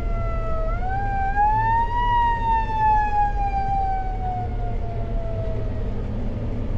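Fire truck's wailing siren, rising for about a second, then falling slowly and fading out near the end as the truck passes, over the steady low rumble of road noise.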